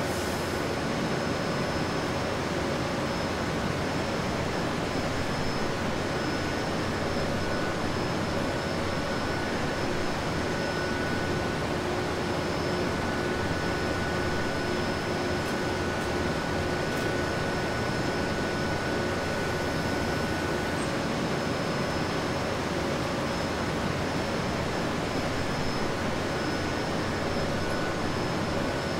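Steady car-assembly-hall noise: a constant hiss and hum of machinery and ventilation, with a few thin, steady whining tones over it.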